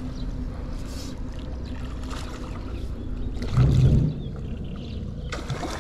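Hooked carp splashing and swirling at the surface as it is played in toward the landing net, with one louder splash about three and a half seconds in, over a steady low hum.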